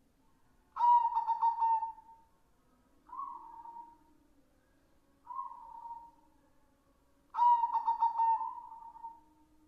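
White zebra dove (perkutut) cooing: two loud coo phrases, one about a second in and one about two-thirds of the way through, each trailing off in a slightly falling tone, with two shorter, softer coos between them.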